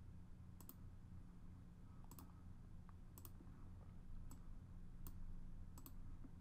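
Computer mouse clicking: about six quick clicks and double-clicks roughly a second apart, over a faint steady low hum.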